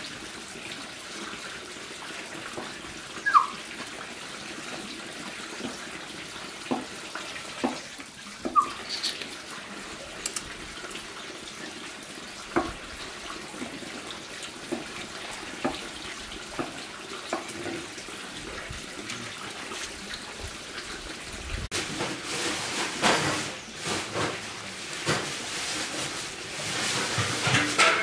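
Water running and splashing, with scattered light knocks and clicks, growing louder and busier over the last several seconds.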